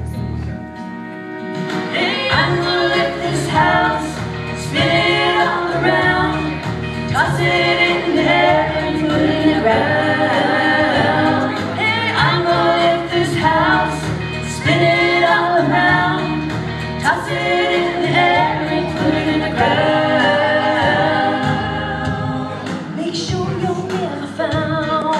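Three women singing together in harmony, live through stage microphones.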